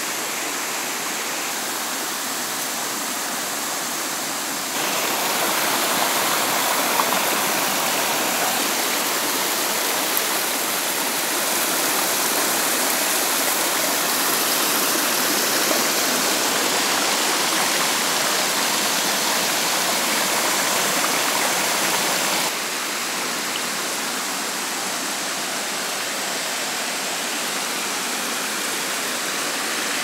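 Water rushing and splashing over rocks in a small waterfall and shallow stream, a steady hiss. It gets louder about five seconds in and drops back abruptly a little after twenty-two seconds.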